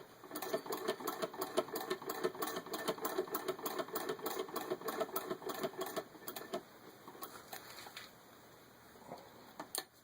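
Antique Domestic vibrating-shuttle sewing machine head turned by hand, stitching through six layers of denim: a fast, even clatter of needle and shuttle that stops about six and a half seconds in, followed by a few fainter clicks.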